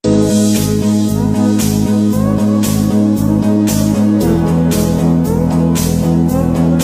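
Background music with guitar and bass over a steady beat, starting suddenly and changing chord about four seconds in.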